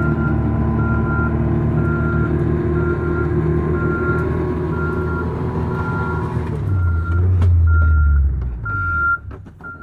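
Truck engine running under load with its reversing alarm beeping steadily about every three-quarters of a second. Near 7 s a louder low rumble rises for about a second and a half as the truck works through deep snow. Then the engine sound falls away near 9 s while the beeping goes on.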